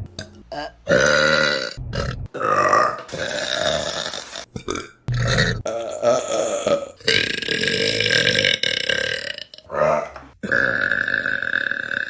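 Women burping loudly, one burp after another, each clip cut off abruptly before the next. One burp in the middle is drawn out for nearly three seconds.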